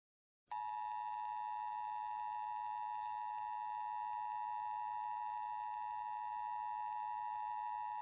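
Emergency Alert System attention signal: a steady two-tone pitch that starts about half a second in. It announces that an emergency alert message follows.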